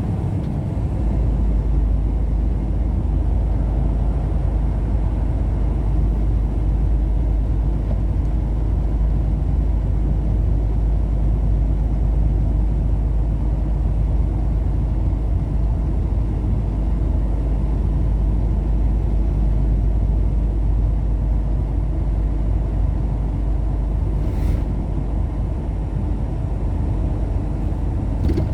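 A car driving along a road, with steady, low road and engine noise throughout and a faint click about 24 seconds in.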